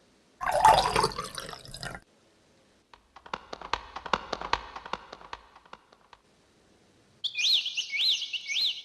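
Three short sound effects one after another with silence between: a loud noisy burst lasting under two seconds, then a quick run of sharp clicks for about three seconds, then a high warbling chirp that rises and falls about three times a second near the end.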